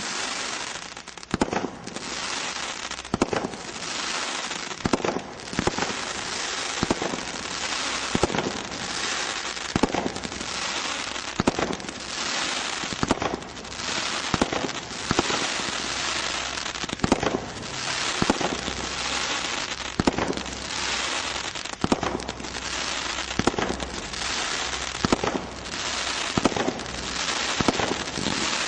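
24-shot firework barrage cake firing, one sharp report about every second, over a continuous dense crackling from the bursting effects.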